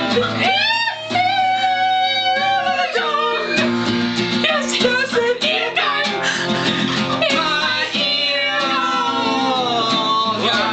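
Acoustic guitar strummed along with men singing.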